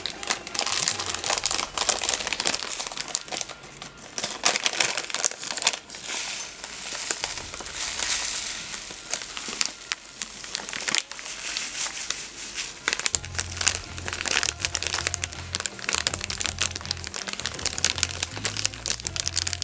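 A plastic bag of grated coconut crinkling and crackling steadily as it is handled and tipped to pour the coconut into a bowl.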